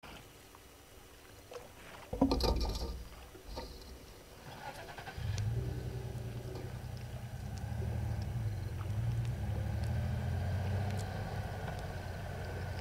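A motor vehicle's engine starts running at about five seconds in and keeps up a steady low hum, after a brief loud clatter of noise at about two seconds.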